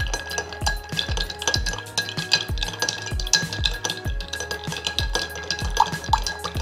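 Background music with a steady beat, over light clinking of ice cubes as a bar spoon stirs them in a glass mixing glass.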